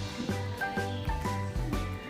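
Background music: a light, bouncy tune with short bell-like melody notes over a steady bass beat.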